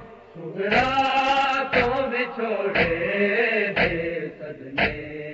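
Men's voices chanting a Punjabi noha (Shia lament) in long held, wavering lines, with a sharp beat of matam (hands striking chests) about once a second. The chant drops briefly at the start and comes back in under a second in.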